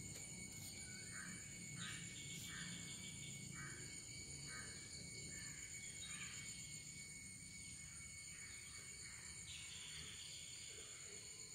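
Faint outdoor insect chorus: a steady high-pitched drone, with a string of short calls repeating roughly once a second over it.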